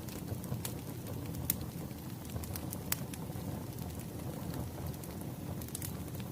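Firewood burning in a fire: a steady low rush of flames with scattered sharp pops and crackles from the logs.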